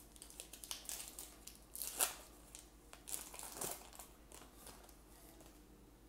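Foil wrapper of a baseball card pack crinkling and crackling as it is opened by hand, loudest about two seconds in and again around three and a half seconds, then dying down.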